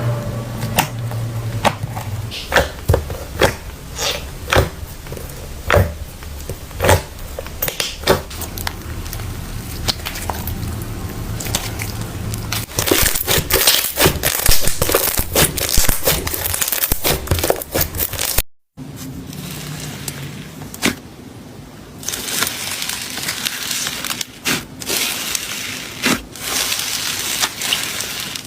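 Slime being squished and worked by hand, giving a run of irregular sharp clicks, pops and crackles. The audio cuts off briefly about two-thirds of the way through, then the clicking resumes.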